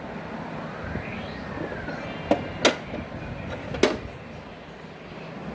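Small bottles knocking against a refrigerator's door shelf as they are put in: three sharp knocks, two close together a little over two seconds in and a third about a second later.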